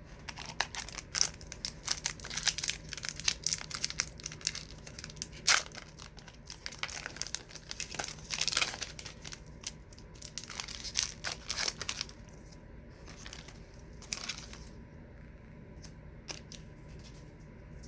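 A trading card pack wrapper being torn open and crinkled in the hands: a dense run of crackles and rips for about the first twelve seconds, then only a few light ticks.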